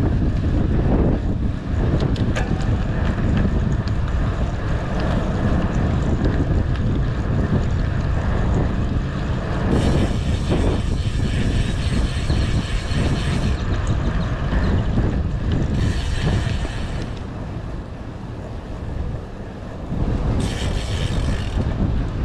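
Wind buffeting the microphone of a rider on a moving bicycle, a loud, steady low rumble, with a few short stretches of brighter hiss. The rumble eases for a couple of seconds before rising again near the end.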